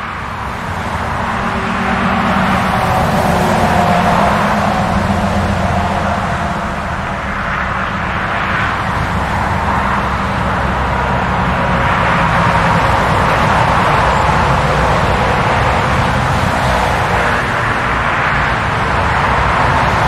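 Highway traffic noise: a continuous rush of passing vehicles over a low rumble, swelling gently every few seconds as nearer vehicles go by. It fades in over the first couple of seconds.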